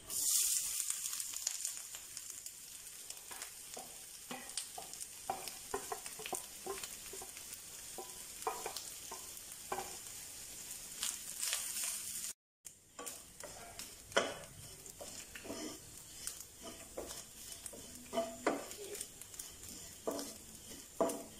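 Grated coconut dropped into hot coconut oil, setting off a burst of sizzling at the start, then a steady frying sizzle as it begins to roast. A wooden spatula scrapes and stirs it around the nonstick pan in short strokes.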